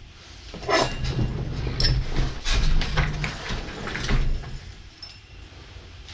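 Handling and movement noise: rustles, clicks and low knocks as string is tied onto a yo-yo and a person gets up from an office chair, dying down after about four seconds.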